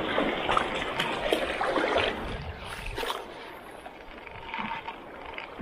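Choppy sea waves washing against shore rocks, with strong wind buffeting the microphone. Louder over the first couple of seconds, then easing, with a few faint clicks.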